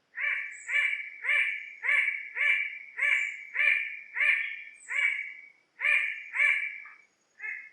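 Bird-of-paradise (cenderawasih) calling: a rapid series of about a dozen loud, pitched calls, nearly two a second, with a short break about five and a half seconds in and a fainter final call near the end.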